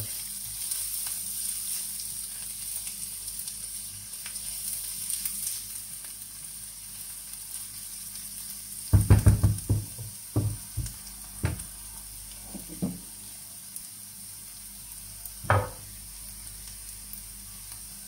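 Onion and grated carrot sizzling in oil in a non-stick frying pan while being stirred with a spatula. About nine seconds in comes a quick run of loud knocks of the spatula against the pan, then a few single knocks, the last about fifteen seconds in.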